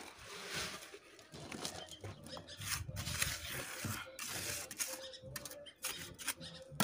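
Wet cement-and-sand mix poured from a bucket into a wooden mould, followed by a trowel scraping and slapping it into place: an irregular run of wet scrapes and soft knocks.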